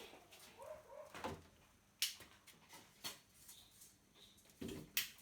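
Scattered light clicks and taps of small screws and an amplifier IC being handled and fitted onto an aluminium heat sink on the workbench, with three sharper clicks about a second apart.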